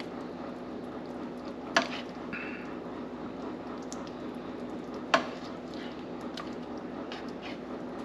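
Plastic serving spoon ladling fish and sauce onto a plate, knocking sharply against the dishes twice, over a steady low hiss and hum.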